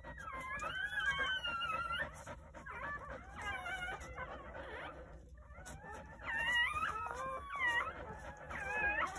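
Newborn Jindo puppies crying with high, wavering squeals, several at once, with a short lull about five seconds in.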